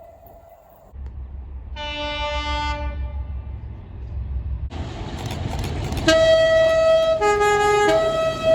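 Train horns sounding over a low rumble: a short double toot about two seconds in, then from about six seconds a long blast that switches briefly to a different chord near seven and a half seconds before returning to its first note.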